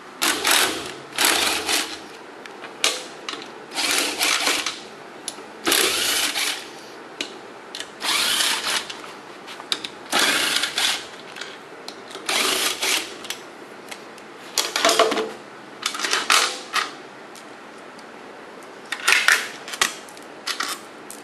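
Socket wrench ratchet clicking in repeated short runs with pauses between them, backing out the engine's crankcase side-cover bolts.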